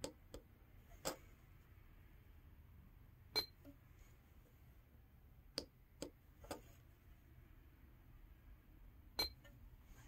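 Tactile push buttons on a small steering-wheel remote switch pad being pressed one at a time: about eight sharp little clicks at uneven intervals.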